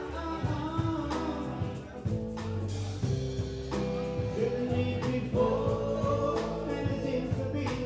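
Live rock band playing: a male lead singer singing over electric guitars and a drum kit.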